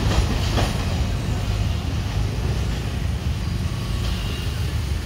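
Sri Lanka Railways Class S8 diesel multiple unit running away down the line: a steady low rumble of its engine and wheels, slowly fading.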